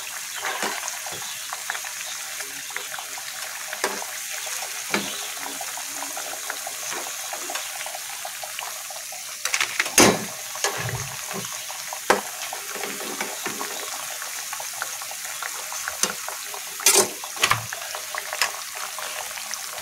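Ragi-battered banana fritters deep-frying in hot oil with a steady sizzle. A few sharp knocks of a metal slotted spatula against the pan, the loudest about halfway through and near the end.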